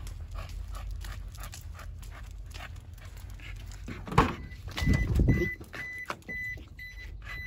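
Footsteps and a dog's claws tapping steadily on asphalt, with the dog panting. About four seconds in, a sharp clunk and a rattle as the truck's door is unlatched and swung open, after which the open truck gives short electronic warning beeps about twice a second.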